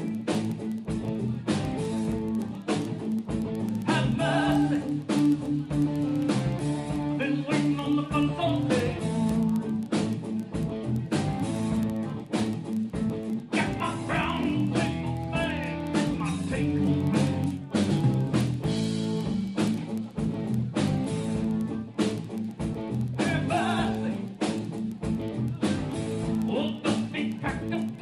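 Blues-rock band playing live: guitar over bass and a steady drum beat.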